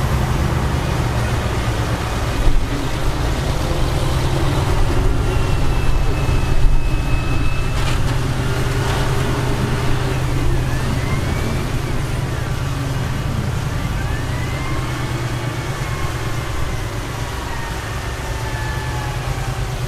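Heavy diesel engine of earthmoving machinery running steadily with a deep rumble. Faint high squealing tones slide up and down over it in the middle part.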